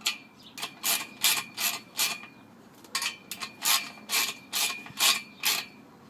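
Ratcheting wrench tightening the nuts on the firewood rack's bolts: two runs of quick ratchet clicks, about six strokes each, with a short pause between.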